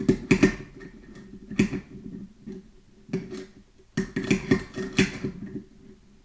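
Metal safety-valve wrench clicking and rattling against the Hawkins pressure cooker lid as it is turned to unscrew the safety valve. Two clusters of rapid clicks, each about a second long, come near the start and about four seconds in, with single clicks between.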